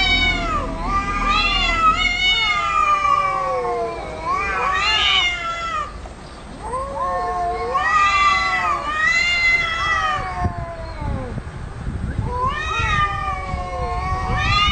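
Cats yowling (caterwauling) in an aggressive standoff: about six long, drawn-out calls that rise and fall in pitch, each one to two seconds long, with short pauses between them.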